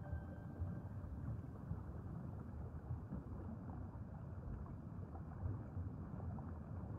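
Steady low underwater rumble and wash of moving water, with no distinct events.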